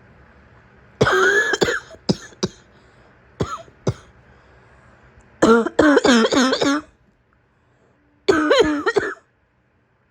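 A woman with a sick person's cough coughing in fits: a harsh cough about a second in, a few short coughs, a rapid run of coughs around the middle, and a last burst near the end.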